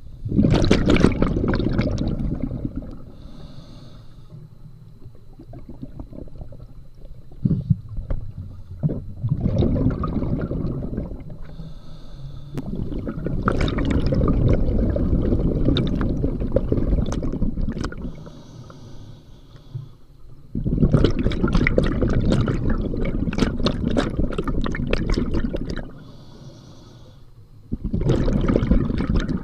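Open-circuit scuba regulator breathing heard underwater, close to the microphone in a waterproof camera case on the diver's mask strap. Short, faint hissing inhales through the regulator alternate with long, loud bubbling exhales of one to five seconds, about five breaths in all.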